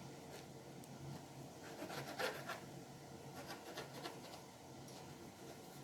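A knife cutting strips from rolled homemade egg noodle dough on a cutting board: faint scraping and rubbing strokes, a few of them together about two seconds in.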